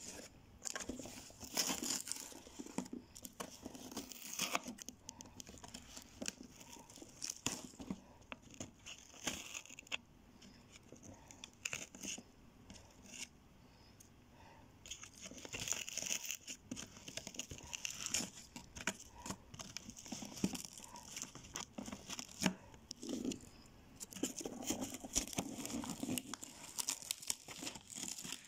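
A cardboard shipping box being torn open by hand: packing tape and cardboard ripping and crinkling in irregular bursts, with a quieter lull about halfway through.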